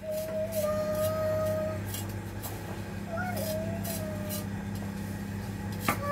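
A faint high voice, a child's, holds a long humming note twice over a steady low hum, with scattered light clicks.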